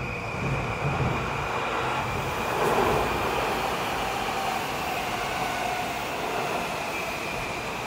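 Electric commuter train running past on an elevated steel rail bridge: a steady rumble of wheels on track with a faint high whine held throughout, swelling slightly about three seconds in.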